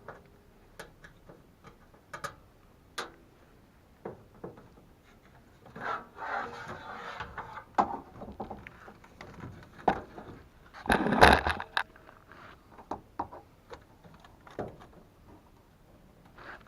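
Hands working on a gas furnace's control board and thermostat wiring: scattered clicks and taps, a stretch of scraping about six seconds in, and a louder burst of scraping about eleven seconds in.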